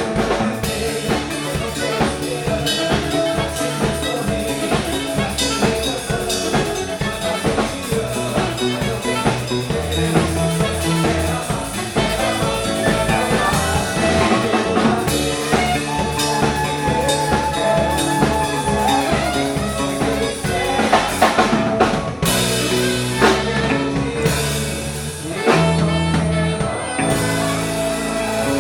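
Band music with a drum kit keeping a steady beat over a moving bass line, without singing.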